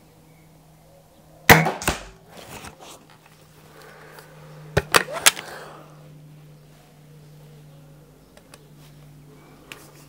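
A .22 Weihrauch HW99S spring-piston break-barrel air rifle fires once about a second and a half in, a sharp crack with a knock right after. A few seconds later comes a quick run of sharp metallic clicks as the rifle is handled and the barrel broken for cocking.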